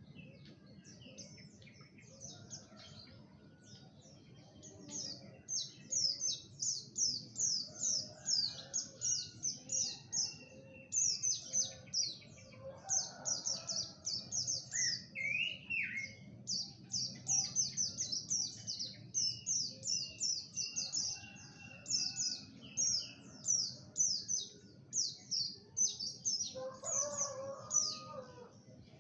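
A songbird singing long runs of sharp, high, downslurred notes, about two or three a second, starting about five seconds in, with brief pauses and an occasional rising whistle.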